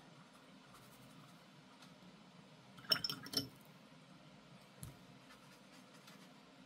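A few light glass clinks in quick succession about three seconds in, then one faint tap a couple of seconds later, over quiet room tone.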